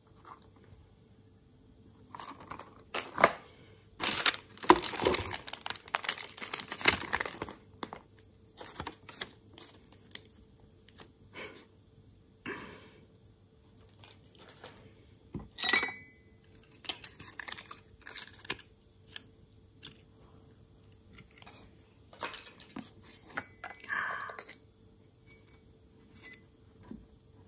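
Irregular crinkling and rustling of something being handled, densest in a stretch a few seconds in, followed by scattered light clicks and rustles.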